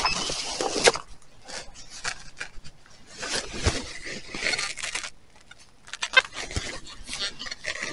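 Clothing rubbing over a body-worn camera's microphone, with rustling and steps through dry grass and the knock of hand tools being handled. It comes as irregular scrapes and rustles, loudest at the very start when the fleece covers the camera.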